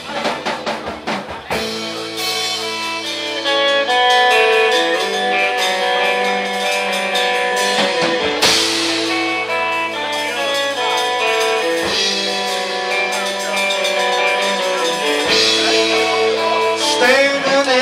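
Live rock band playing an instrumental passage: electric guitars over bass and drums, with held notes changing over a steady beat.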